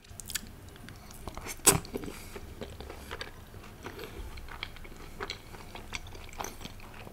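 Close-miked eating sounds of a man chewing a mouthful of paneer in gravy, with many small mouth clicks and one loud sharp bite about one and a half seconds in.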